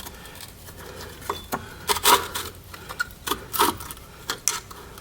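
Steel spring clip and drum-type parking-brake shoe being worked into place on the backing plate by hand: a scatter of short metal clicks and scrapes, about eight over the few seconds.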